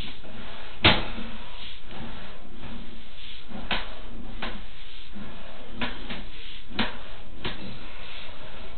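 Sewer inspection camera's push cable being pulled back through the pipe and reeled in: irregular clicks and knocks over a steady noise, the loudest knock about a second in.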